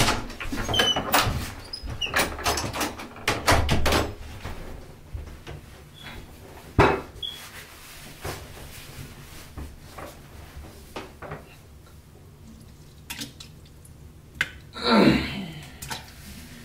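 A run of clicks, knocks and clunks of things being handled, like a door and drawers being worked, dense for the first four seconds, then one sharp knock at about seven seconds and scattered clicks. A short swish near the end.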